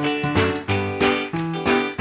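Background music: plucked guitar notes at an even, bouncy beat of about three notes a second.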